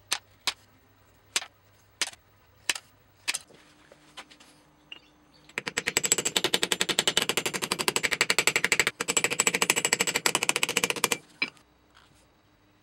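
Small hammer tapping copper rivets on a leather axe sheath set over a steel block to set them. First come five single taps, roughly one every half second to a second. About five and a half seconds in, a long run of rapid, even light taps begins and lasts about five and a half seconds.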